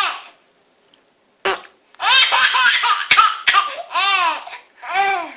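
A baby laughing hysterically: a short pause, then a long run of rapid high-pitched laughs, followed by two separate drawn-out laughs near the end.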